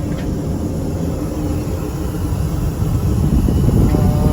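Steady low rumble of an Airbus A350-1000 airliner's cabin noise in flight, heard inside the lavatory, swelling a little near the end.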